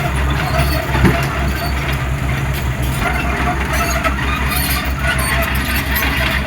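Heavy diesel engine of a hydraulic excavator running steadily with a pulsing low rumble, with a short knock about a second in.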